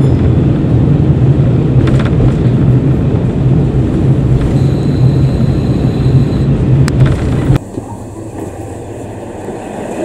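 KiHa 40 diesel railcar heard from inside the carriage: a steady low engine hum over running and rail noise as it runs into a station, with a faint high whine midway. The sound cuts off suddenly about three-quarters of the way through, leaving much quieter background.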